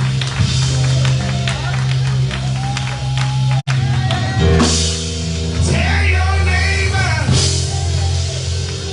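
Gospel music from the church band with long held chords, and a voice calling out over it. The sound cuts out for an instant about three and a half seconds in.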